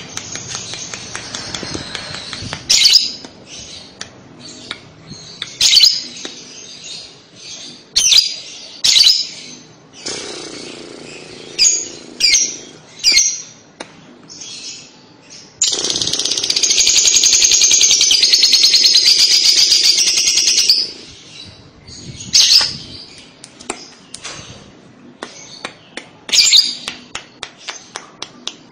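Fischer's lovebird chattering: sharp, high chirps in quick bursts, and in the middle an unbroken trilling chatter (the 'ngekek') lasting about five seconds.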